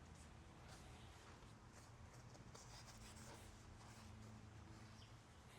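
Near silence with faint, irregular rubbing: a rag wiping grease and oil off the engine's gasket sealing surface before it is resealed.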